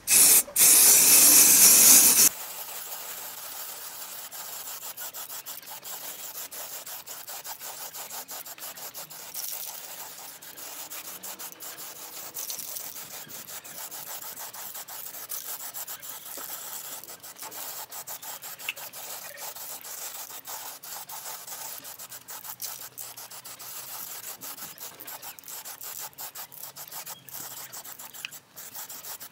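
Aerosol spray paint can hissing loudly as a coat of paint goes onto the wheel, cutting off suddenly about two seconds in. A faint, dense scratchy crackle follows.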